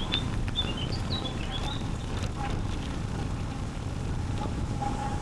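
Small birds chirping in quick, high calls during the first two seconds, over a steady low rumble from the moving bicycle: wind on the microphone and tyres rolling on the path.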